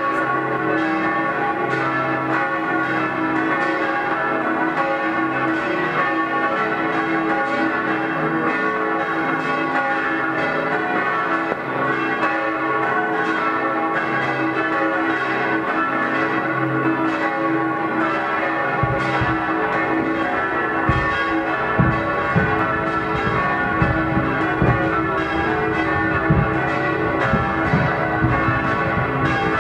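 Several church bells ringing together, the full peal running without pause. From about two-thirds of the way in, dull low bangs of fireworks go off irregularly beneath the bells.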